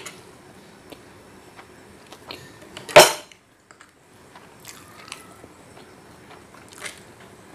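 A metal fork clinks and scrapes against a plate, with one loud, sharp, ringing clink about three seconds in and a few lighter taps, over soft chewing.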